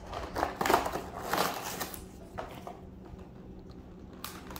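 Crinkling and rustling of a clear plastic toy-car package being handled, in a run of short crackles during the first two seconds, then two single crackles later.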